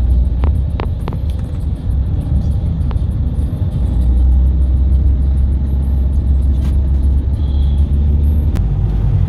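Mahindra XUV700 driving along: steady low engine and tyre rumble.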